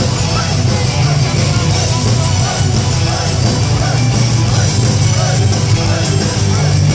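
Heavy metal band playing live, loud and dense with distorted guitars and drums.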